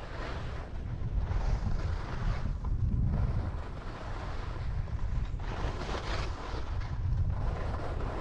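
Wind buffeting the microphone while skiing downhill, under the hiss of skis scraping across the snow, swelling and fading with each turn.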